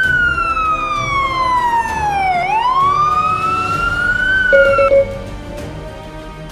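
Emergency vehicle siren in a slow wail: the pitch falls for about two and a half seconds, rises again for about two, then cuts off about five seconds in, with a brief steady tone just before it stops.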